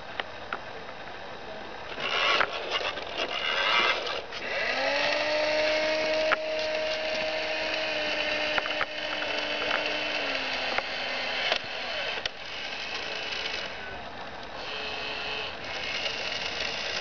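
Toy fire engine's small electric motor and plastic gears whirring as its ladder is raised. A steady tone is held for several seconds in the middle.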